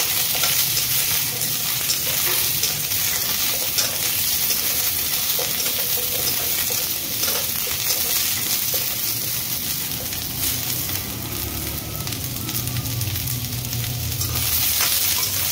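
Whole small onions shallow-frying in a little oil in a stainless-steel kadai: a steady sizzling hiss, with a steel spoon scraping and clicking against the pan as they are stirred.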